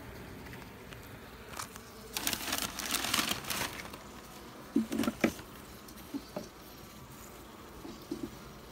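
Honeybees buzzing over an open hive, with a plastic cover sheet crinkling from about two to three and a half seconds in, then a few knocks from the wooden frames being handled about five seconds in.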